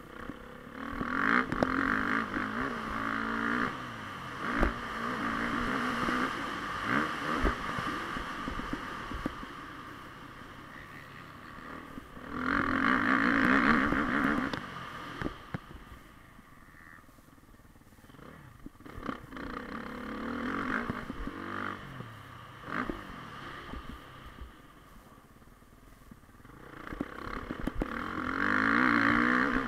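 Motocross bike engine heard from onboard, opening up hard several times, loudest in the middle and near the end, and easing off in between, with sharp knocks and rattles from the bike over the rough track.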